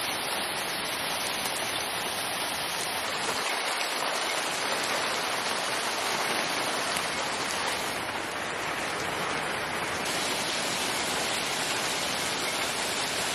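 Hailstorm: hail and heavy rain falling in a steady, even downpour.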